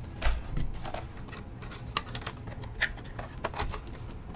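A small plastic RC crawler being handled on a silicone work mat: a soft thump as it is set down just after the start, then scattered clicks and rustles as its plastic body shell is pulled off the chassis.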